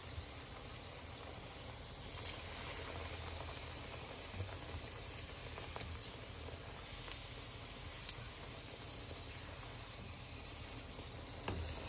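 Sopaipilla dough frying in hot oil in a pan: a steady sizzle and bubbling, with a single light click about eight seconds in.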